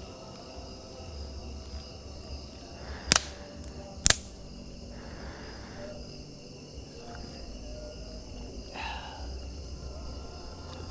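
Night insects and crickets chirring steadily. Two loud, sharp clicks come about a second apart, roughly three and four seconds in.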